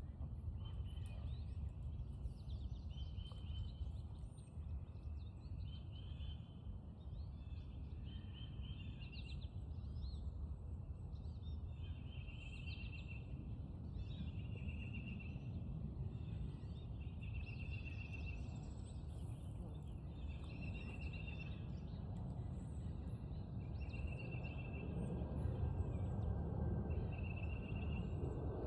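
A short high chirping call, each under a second long, repeated at the same pitch about every second and a half, over a steady low rumble that grows a little louder near the end.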